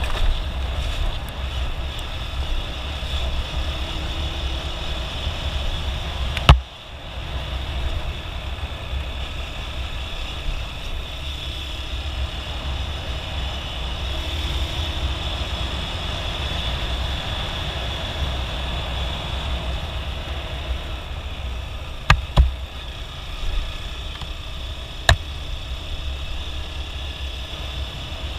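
Motorcycle engine running steadily, with a few sharp knocks partway through.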